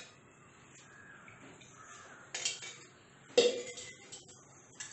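Steel spoons clinking against small steel bowls a few times as spices are measured out, the loudest clink about three and a half seconds in.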